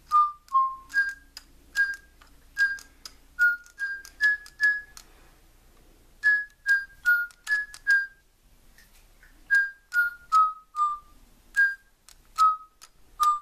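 DigiBirds electronic toy bird chirping a tune: a string of short, clipped whistle notes at changing pitches, each dropping slightly and starting with a faint click, with a couple of short pauses.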